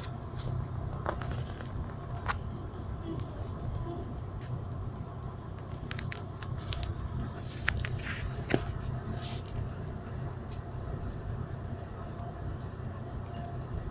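A bus driving at highway speed, heard from inside the cabin: a steady low engine and road rumble, with scattered sharp clicks, most of them a few seconds in.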